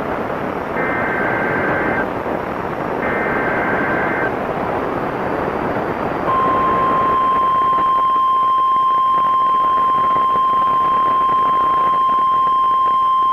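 EAS/SAME digital header over radio static: two warbling bursts of data tones, each about a second long. About six seconds in, the steady single-pitch NOAA Weather Radio warning alarm tone begins and holds, announcing a new tornado warning.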